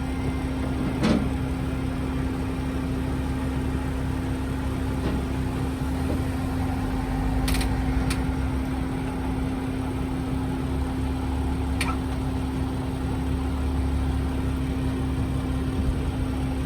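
Car engine idling steadily while it supplies a jump start to a car with a flat battery. A few short, sharp clicks sound over it: about a second in, twice around eight seconds, and once near twelve seconds.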